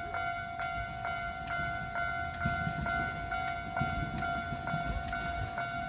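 Japanese level-crossing warning bell ringing its repeated electronic clang, a little over two strikes a second. A passing train's low rumble joins about halfway through.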